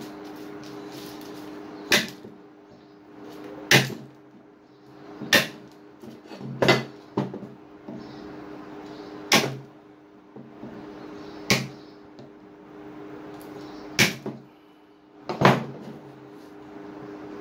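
Hand aviation tin snips closing with sharp snaps, about nine times a second or two apart, cutting off the ends of metal pins that stick out of a wooden axe handle.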